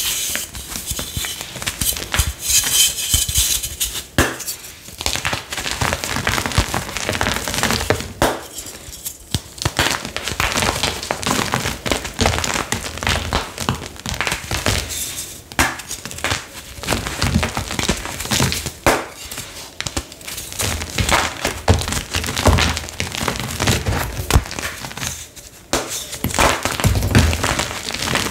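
Blocks and chunks of dyed gym chalk crushed and crumbled between the fingers: dense crunching and crackling with powdery rustle, dropping off briefly a few times.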